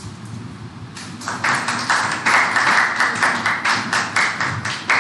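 Audience clapping, starting about a second in and going on in a steady rhythm of about four to five claps a second.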